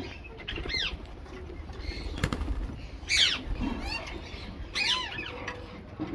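Rose-ringed parakeet giving about four short calls, each a quick arching sweep of pitch, the loudest about three seconds in. A single sharp click sounds a little after two seconds in.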